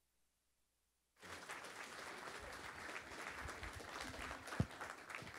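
Audience applauding. It starts about a second in, after a moment of dead silence, and holds steady as many hands clap.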